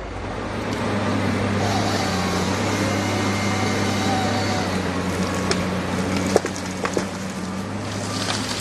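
Diesel engine of a Komatsu PC300LC-8 tracked harvester working under hydraulic load as its Pro700 harvester head grips and fells a standing pine. A higher whine runs for a few seconds, then come several sharp cracks of wood, and a crashing rush near the end as the cut tree goes over.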